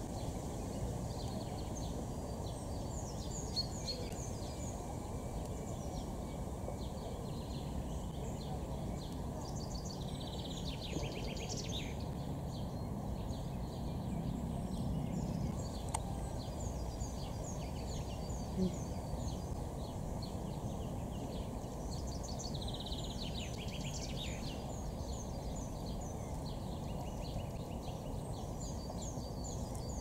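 Lesser whitethroat singing: two dry, rattling trills about twelve seconds apart, among many short high chirps, over steady low background noise.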